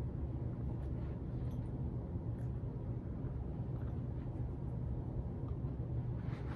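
Puppy gnawing a marrowbone: faint, scattered clicks and scrapes of teeth on bone over a steady low hum.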